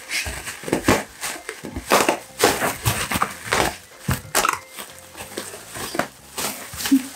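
A Labrador retriever biting and chewing bubble wrap held out by hand: plastic crinkling, with irregular sharp pops of bursting bubbles.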